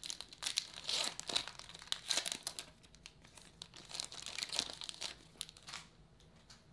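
Foil wrapper of a baseball card pack being torn open, crinkling as it is pulled apart and the cards are slid out; the crinkling stops about six seconds in.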